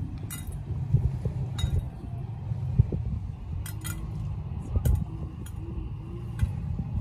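Light clinks of small hard objects being handled, about seven sharp ticks spread unevenly through, over a steady low rumble.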